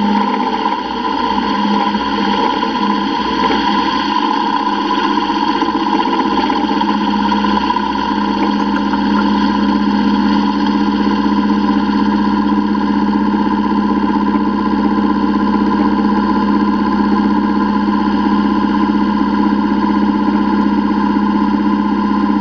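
Milling machine cutting the inside opening of a metal T6 turbo exhaust flange with an end mill: a steady machine hum and whine as the cutter throws chips.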